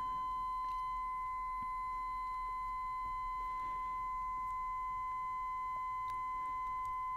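A steady, unbroken high-pitched electronic tone at one constant pitch, with a few faint soft clicks of scan-tool keypad buttons being pressed.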